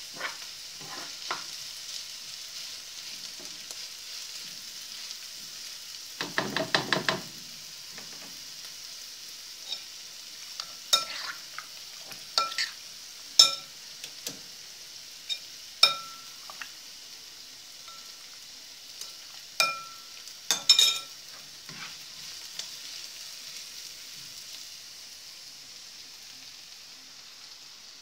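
Chopped onions sizzling in oil in a frying pan, stirred with a spoon. A quick run of scraping knocks comes about six seconds in, then scattered sharp clinks of the utensil against the pan, each with a short ring.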